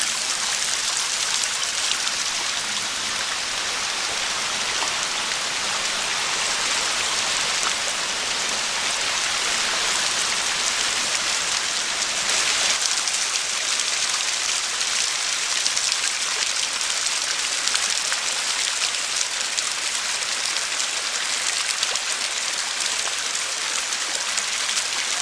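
Steady splashing rush of a small waterfall, water spilling and pattering over rocks, close by.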